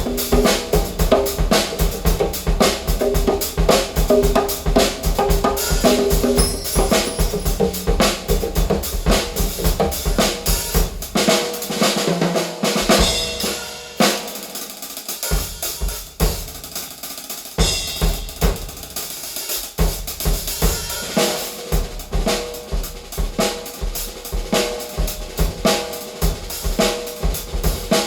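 A percussion track on a drum kit, with kick drum, snare, rimshots, hi-hat and cymbals, played loud through a large hi-fi speaker system: 18 midwoofers, Heil ESS AMT-1 tweeters and two REL S/812 subwoofers. About halfway through the kick drum drops out for several seconds while cymbals crash, then the full beat returns.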